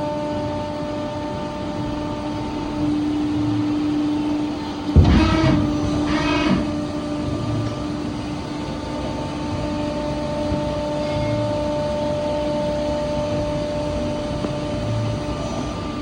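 Broaching machine running with a steady hum while an E-comet yoke is broached. About five seconds in there is a sharp knock, followed by two short squeals.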